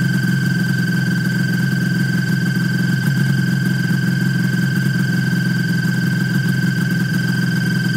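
Snowmobile engine idling steadily, with a constant high whine above the low engine note.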